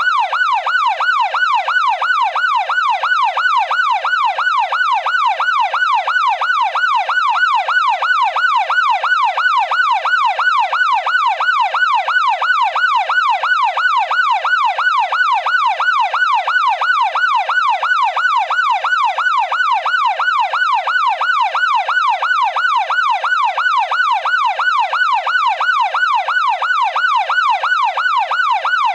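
Police car electronic siren on its fast yelp setting: a loud, evenly repeating wail that sweeps up and down about three times a second.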